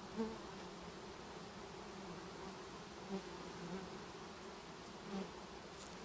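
Honeybees buzzing in a steady hum, with several brief louder buzzes as single bees pass close by.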